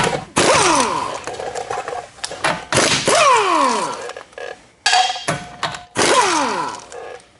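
Pneumatic impact wrench on an air hose, run in several short bursts to break loose and spin off a car wheel's lug nuts. Each burst ends with a falling whine as the tool spins down.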